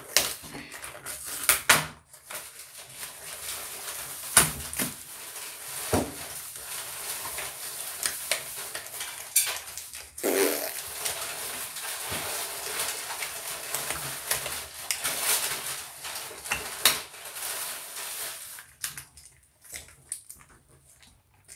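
Plastic and cardboard toy packaging being handled and pulled apart: steady rustling and crinkling with frequent sharp clicks and knocks as a toy car is worked free. The handling dies down near the end.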